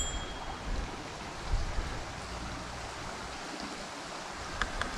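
Steady outdoor rushing noise with a low rumble underneath, swelling briefly about a second and a half in, and a few faint clicks near the end.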